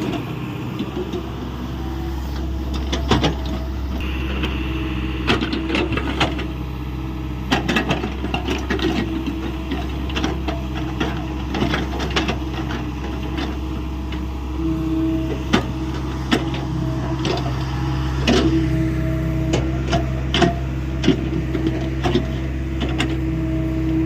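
Hyundai 85A Smart mini excavator's diesel engine running steadily under working load, with frequent sharp clanks and knocks from the digging work. The engine note shifts slightly upward about two-thirds of the way through.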